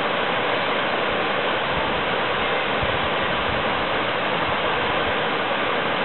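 Waterfall rushing steadily down a rock face into a pool: an even, unbroken hiss of falling water.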